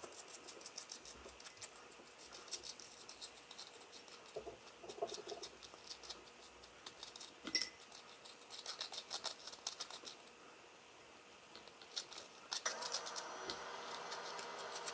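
A fork raking and scraping strands of cooked spaghetti squash out of its rind: a fast run of fine, scratchy clicks, with one sharper click about seven and a half seconds in. The scraping stops about ten seconds in.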